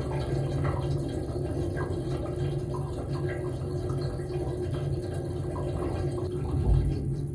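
Dishwasher running its wash cycle, heard from inside the machine through a waterproof camera case: a steady pump hum under sprayed water spattering and splashing in short, repeated bursts.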